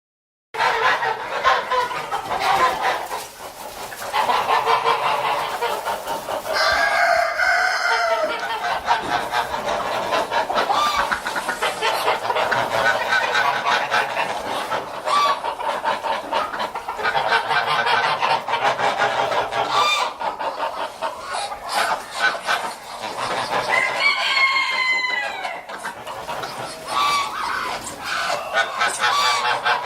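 A flock of farmyard fowl calling continuously, many birds at once, with short repeated calls throughout and louder drawn-out calls about seven seconds in and again around twenty-four seconds.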